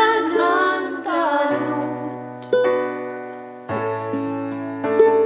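Young women's voices singing a Finnish worship song over electric piano chords and ukulele. The singing stops about two seconds in, and the keyboard plays on alone, with a new chord struck about once a second.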